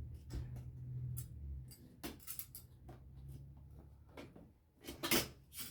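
Scattered clicks and knocks from loose parts of a disassembled TV being handled and set down, the loudest knock about five seconds in.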